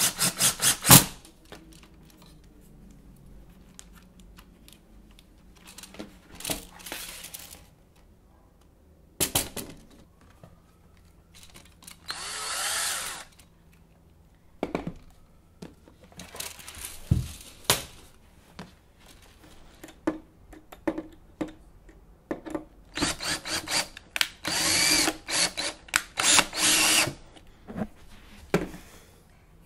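Cordless drill run in short bursts of up to about two seconds, several times over, driving screws into wooden blocks on a wooden platform, with its pitch shifting as the motor speeds up and slows. Between the bursts come a few knocks of wood being handled.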